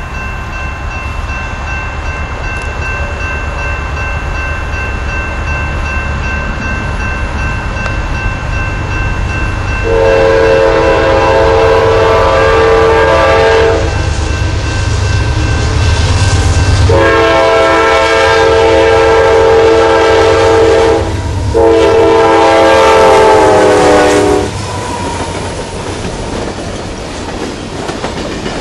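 Norfolk Southern coal train with Dash 9-40CW and SD70M diesel locomotives approaching with a steady low rumble. The lead locomotive's air horn sounds three times: a long blast about a third of the way in, then a second long blast with a shorter one close behind it. Near the end the coal hopper cars roll past with wheel clatter on the rails.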